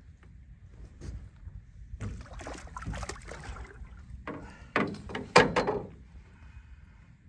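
A pike thrashing and splashing in a landing net at the side of a small boat, with water splashing and knocking against the boat; the loudest splashes and knocks come about four to six seconds in.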